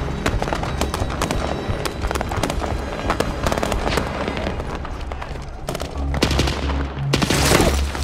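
Rapid gunfire from rifles and machine guns in a movie battle scene, layered over a low droning music score. About seven seconds in comes a loud blast with a rush of debris.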